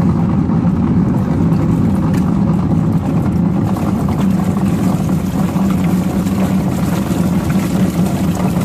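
Washing machine running, its motor humming steadily as it churns water with toys inside.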